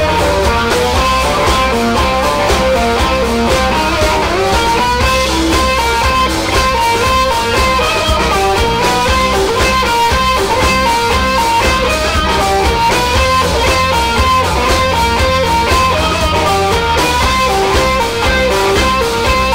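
Live blues band playing an instrumental passage: electric guitars run fast single-note lead lines over bass and drums, the beat steady throughout.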